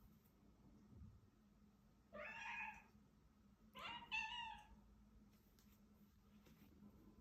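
A domestic cat meowing twice, two drawn-out calls about a second and a half apart.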